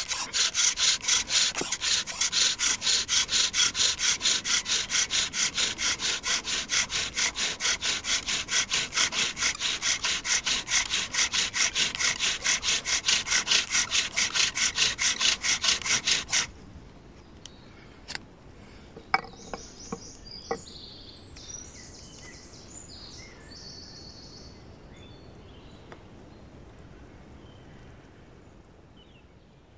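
Bow drill being worked in fast, even strokes, about three to four a second: the wooden spindle grinds in the hearth board's already broken-in socket while the paracord slides on the spindle. It stops suddenly about sixteen seconds in.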